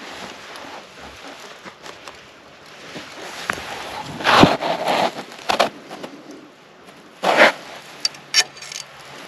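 Dry leaf litter rustling and crunching in several short bursts, the loudest about four to five seconds in, with more near the end.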